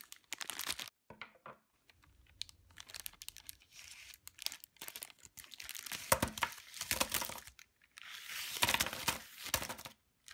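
Crinkly plastic wrapper of a Kit Kat 10-pack being torn open and shaken, the wrapped bars spilling out. Irregular crackling, with two longer, denser bursts of crinkling in the second half.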